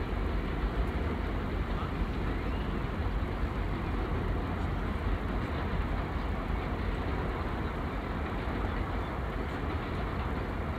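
Steady low outdoor rumble with no distinct events and no ball play.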